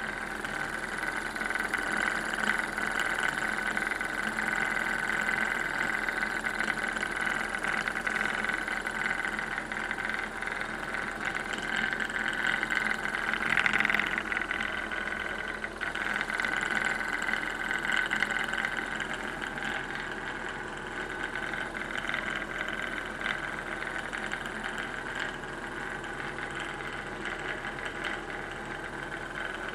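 Homemade free-piston Stirling engine running steadily, its piston shuttling in a glass cylinder and driving a linear generator: a continuous mechanical drone with a prominent high tone, briefly louder about halfway through.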